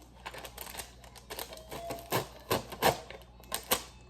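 Irregular plastic clicks and crinkles as the sticky glue cartridge of a plug-in insect trap is pulled out and handled, loudest a little over halfway through.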